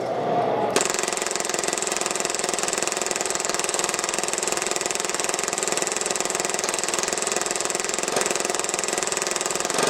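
Action Army AAP-01 airsoft pistol firing one long, continuous full-auto burst, starting about a second in: a very rapid, even stream of shots, the pistol being mag-dumped.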